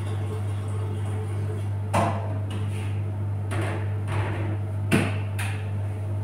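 A steady low hum with a handful of short, irregular clicks and knocks; the two loudest knocks fall about two and five seconds in.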